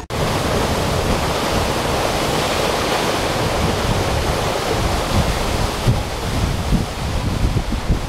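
Cascada Paccha, a tall waterfall, pouring into its rocky pool: a steady, even rush of falling water, with wind buffeting the microphone.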